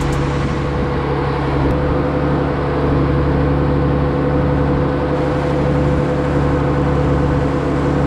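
TMR feed mixer wagon running and mixing a load of silage and grain ration, a loud, steady mechanical drone with a constant hum.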